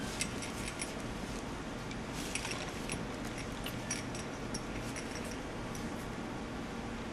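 Scattered light clicks and faint jingling, a few at a time, over a steady low background hum.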